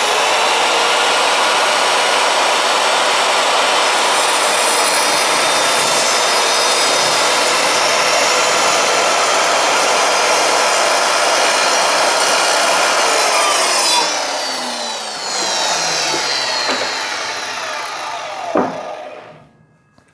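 Evolution R210SMS+ sliding mitre saw running and its blade cutting through a piece of wood. About fourteen seconds in the motor is switched off and the blade spins down with a falling whine. There is a knock shortly before it stops.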